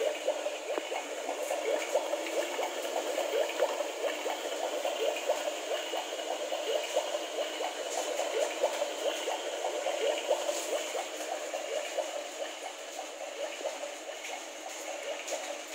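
Toy play kitchen set making a steady bubbling, gurgling water-like sound.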